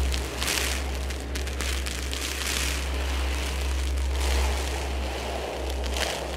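Contemporary percussion ensemble music: a steady deep rumble under washes of rain-like hiss that swell and fade every couple of seconds, with a few scattered clicks.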